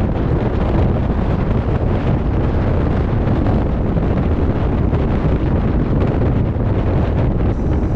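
Wind buffeting an action camera's microphone on a moving bicycle: a loud, steady rushing noise, heaviest in the low end.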